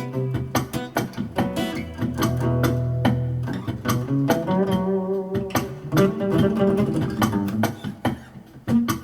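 Instrumental music led by plucked guitar, with low bass notes underneath.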